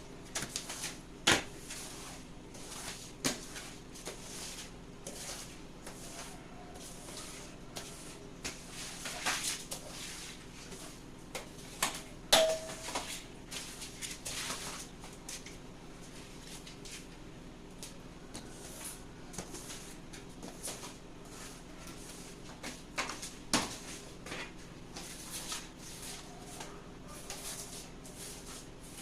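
Kitchen floor being washed: scattered knocks and bumps, the sharpest about a second in, near the middle and near the end, with a few brief swishes of water and scrubbing between them.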